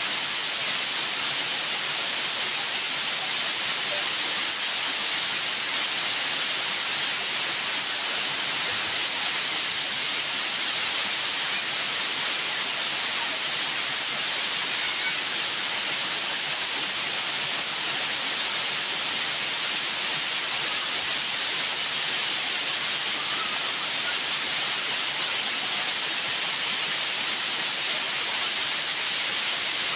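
Steady rushing hiss of falling water, even and unbroken throughout.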